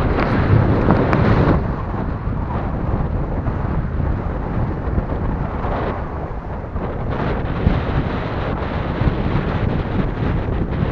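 Wind buffeting the microphone: a rumbling noise that swells and eases in gusts, strongest in the first second or two.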